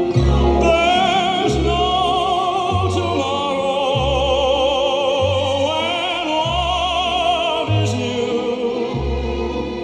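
Music from a vinyl LP playing on a Panasonic SD-85 stereo record player. A classical-style singer holds long notes with wide vibrato over a bass line that moves about once a second.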